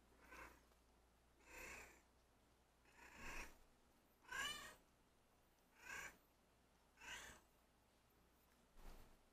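Domestic cat meowing softly and repeatedly, seven short meows about one every second and a half: a hungry cat asking to be fed.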